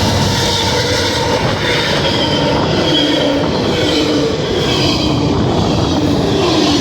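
CSX freight train cars rolling past close by: a loud, steady rolling rumble with wavering squeals from the wheels on the rail.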